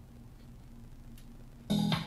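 A faint steady hum, then near the end music with drums and cymbals starts suddenly, played through a small Aerobull French-bulldog Bluetooth speaker.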